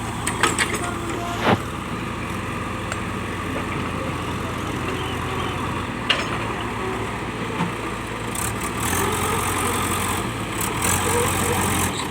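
JCB backhoe loader's diesel engine running steadily, with a few sharp knocks, growing louder and harsher for the last few seconds.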